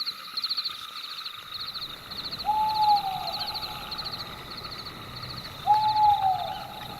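Night-forest ambience: insects chirp in steady pulsing trills, and an owl hoots twice, about three seconds apart. Each hoot lasts about a second and falls in pitch at its end.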